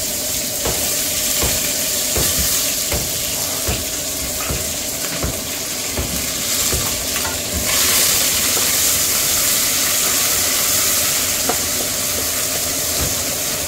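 Sliced onions sizzling in hot oil in a pressure cooker pot, with the short knocks and scrapes of a wooden spatula stirring them against the metal. The sizzle grows louder a little past halfway.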